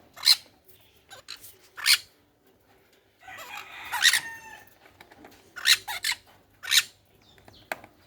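Caged quail and parrots calling: a run of short, loud, high-pitched calls every second or so, with one longer pitched call about four seconds in.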